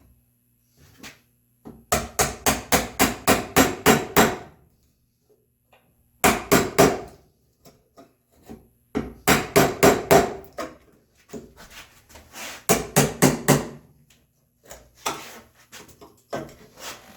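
Mallet blows on red oak in quick runs of about five strikes a second, with short pauses between the runs.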